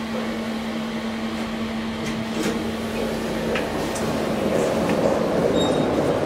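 Steady hum from a SMW traction elevator car standing open, which stops about four seconds in. The general murmur of the metro station ticket hall grows louder, with a few light clicks.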